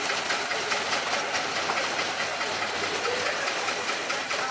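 Small 15-inch gauge locomotive Da 1 running as it hauls open coaches slowly past, its engine mixed with the steady hiss and rumble of the train's wheels on the rails.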